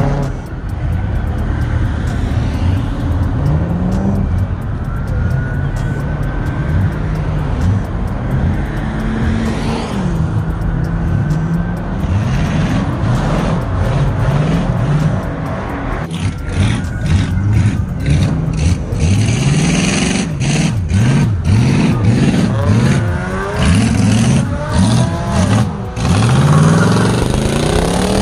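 Car engines revving hard, rising and falling again and again, as cars do tire-smoking burnouts.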